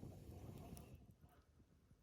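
Faint campfire: a few small crackles over a low rumble, close to silence.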